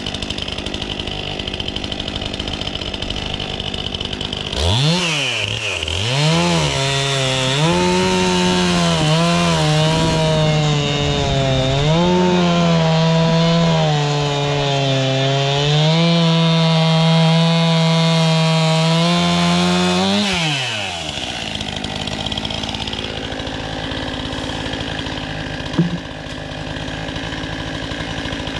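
Two-stroke chainsaw idling, then revved to full throttle about five seconds in and held there while it cuts into an old cherry log. The engine pitch dips several times as the chain loads in the wood, and the saw drops back to idle about twenty seconds in.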